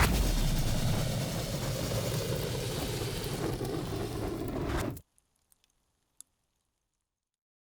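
Large flames burning with a dense, steady rush and a low rumble for about five seconds, then cutting off suddenly. After that comes near silence with a few faint ticks.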